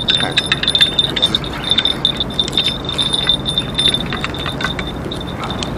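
Spinning fishing reel clicking during the fight with a hooked fish: a continuous high ticking buzz with scattered sharp clicks as the rod is pumped and line is worked in against the fish's pull.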